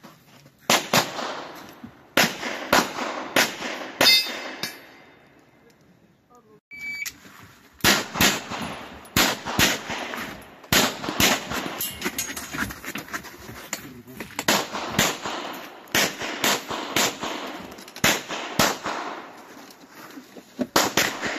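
Rapid pistol shots fired in quick pairs as a shooter runs a competition stage. There is a pause of about three seconds roughly four seconds in, then the pairs resume and continue.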